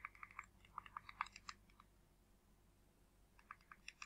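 Faint, quick key clicks, about seven a second, in short runs with a pause of about two seconds in the middle: keys being pressed to step a highlight across an on-screen keyboard.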